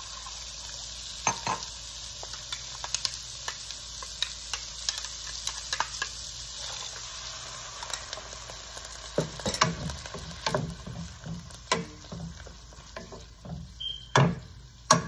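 Ivy gourd pieces sizzling steadily in oil in a nonstick pan, with scattered clicks as ground paste is tipped in from a steel grinder jar. From about halfway through, a wooden spoon stirs and scrapes the pan, with a couple of sharp knocks near the end.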